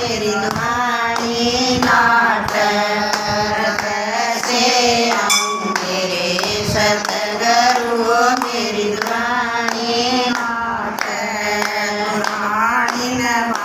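Women singing a Hindi devotional bhajan together, with hand clapping in time with the song.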